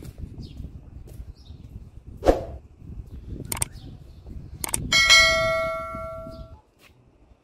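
A single bell-like ring about five seconds in, fading away over a second and a half. Before it come a few sharp knocks and faint bird chirps over a low background rumble.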